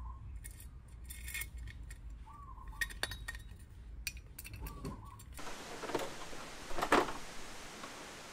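Small metallic clinks and clicks as a hex key and bolts are worked against a welded aluminium bracket, with a faint short chirp every couple of seconds. About five seconds in the sound changes to a rougher rustling and handling noise, loudest about seven seconds in.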